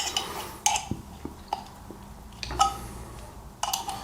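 About five light metallic clicks and clinks, some with a short ring: a Swiss Army knife's steel can opener knocking against an opened aluminium soda can and its pull tab.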